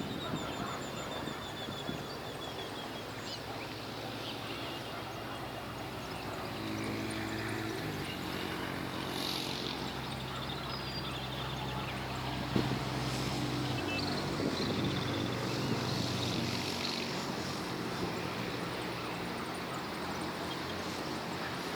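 Outdoor city ambience: a steady wash of distant traffic, with a low engine drone that rises about six seconds in and fades away near the end, and a few faint bird chirps.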